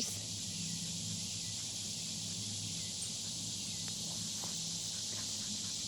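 Steady high-pitched insect chorus, an unbroken buzzing hiss, with a few faint ticks about four to five seconds in.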